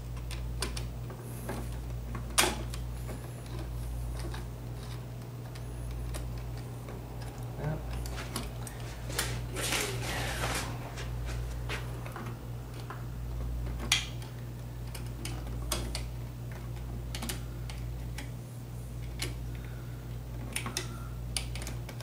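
Scattered small clicks and scrapes of a screwdriver on a light switch's terminal screws and of wires being worked loose from the terminals, with a couple of sharper clicks, over a steady low hum.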